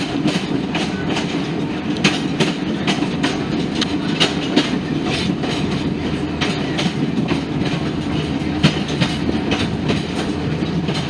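Passenger train rolling along the track: a steady rumble with frequent, irregular clicks and clacks from the wheels and cars.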